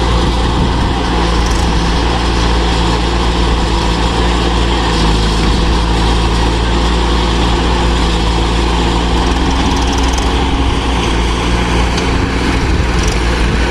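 Heavy diesel engine of earth-moving machinery running steadily at a constant speed, a loud, even drone with no revving.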